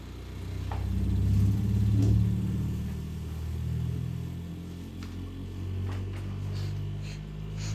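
Vibration exciter shaking a rotor test rig through a sine sweep that climbs in frequency, giving a low hum that swells loudest about two seconds in, then eases.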